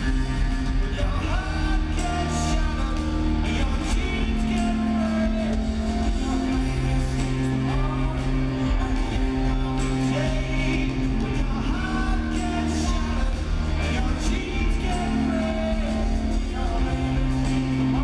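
Live rock band playing a slow song, steady bass notes under guitars and drums, with a sung melody over it, heard from the audience in a large hall.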